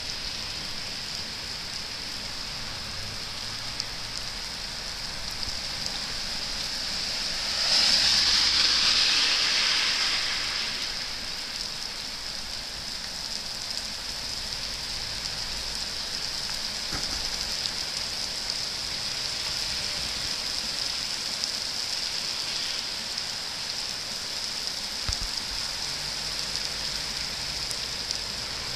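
Heavy rain falling steadily on a wet street and pavement, an even hiss. About eight seconds in, a louder rush swells up and fades away over about three seconds.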